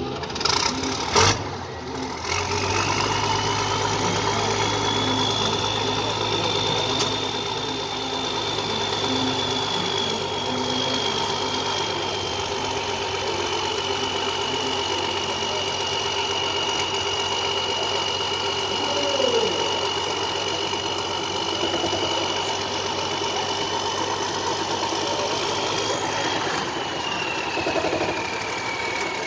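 Diesel tractor engine running steadily, with a high whistle over its hum; both come in about two seconds in, and near the end the hum drops away and the whistle slides down.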